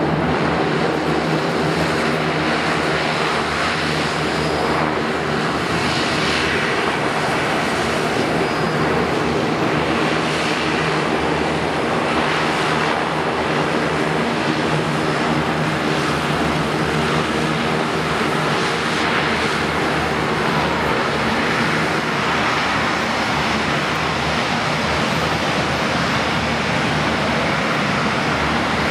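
Saab 2000 twin turboprop airliner taxiing with both engines running at low power, its six-bladed propellers giving a steady drone with several held tones over a broad rush.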